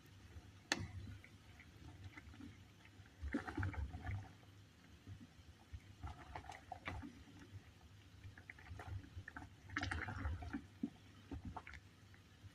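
Saucepan of water with apple, lemon, ginger, cloves and mint simmering, bubbling in irregular clusters of small crackly pops every few seconds over a low steady hum. A single sharp click comes about a second in.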